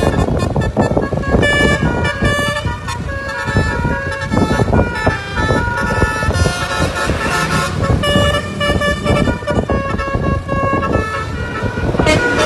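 Basuri musical air horn on a Tunggal Jaya bus playing a tune of short notes that step from pitch to pitch, over a loud low rumble.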